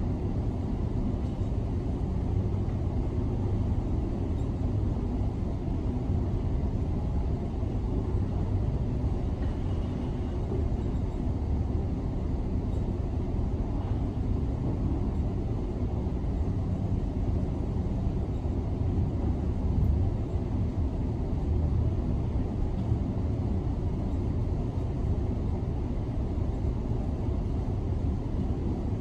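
Steady low rumble of demolition-site machinery and street traffic, muffled through window glass, with no distinct impacts.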